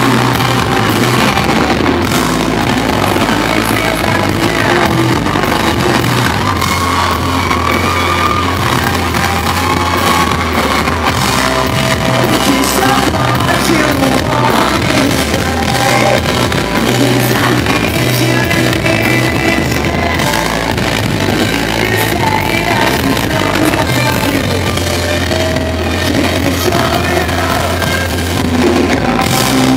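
Live rock band performance: a male lead vocal sung over electric guitar and a full drum kit, steady and loud throughout.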